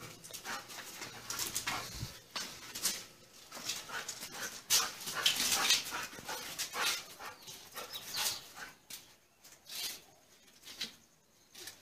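A pet dog playing with a toy: short, irregular noisy scuffling sounds coming in bursts, thinning out over the last few seconds.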